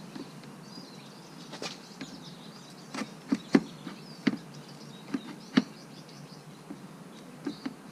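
Irregular sharp knocks and clunks, about ten, the loudest bunched in the middle, as a titanium slip-on muffler is worked onto a motorcycle's exhaust pipe. Birds chirp faintly in the background.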